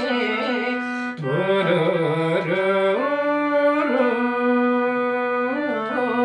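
A Nepali folk song performed live: singing with instrumental accompaniment, long held melody notes that bend and waver over a steady drone.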